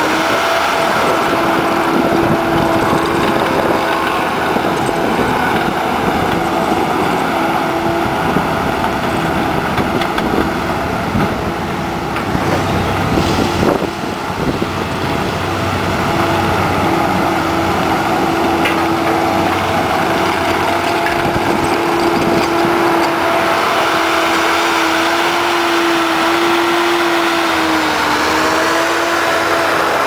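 Case 450CT compact track loader's diesel engine running as the machine drives back and forth on its rubber tracks, with a steady whine over the engine noise. The sound dips somewhat around the middle as the loader moves off and comes back up near the end.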